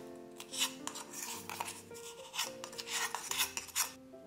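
A wooden spatula scraping dried blueberry powder out of a stainless steel grinder cup into a glass bowl: several short scrapes, over soft background music.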